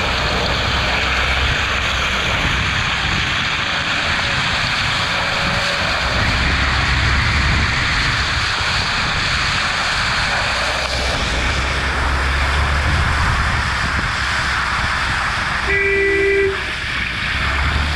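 UAZ Bukhanka van driving through deep mud and puddles on a dirt road: steady engine rumble under the noise of tyres churning and splashing through mud and water. Near the end a brief horn-like tone sounds once.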